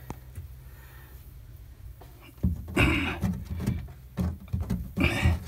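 Irregular rustling and knocking from hands handling the carpet and floor inside a car trunk. It starts about two and a half seconds in, over a low steady hum.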